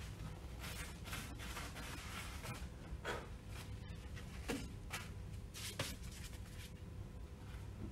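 Gloved hands rustling and handling things, with a few soft clicks about three, four and a half and nearly six seconds in, over a steady low hum.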